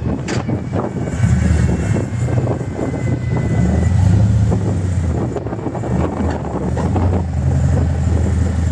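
Harley-Davidson V-twin engine and exhaust running while the motorcycle is ridden, the low note shifting a little with throttle, with some wind noise on the microphone.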